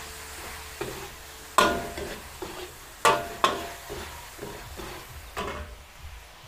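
Stir-frying in a kawali (wok): a spatula stirs and strikes the pan, giving several sharp, ringing clanks, the loudest about one and a half, three and five and a half seconds in, over a light sizzle of the seasoned meat.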